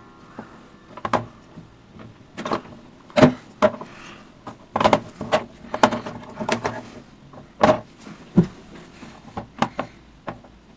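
A series of irregular sharp knocks and clicks, about a dozen spread unevenly over ten seconds.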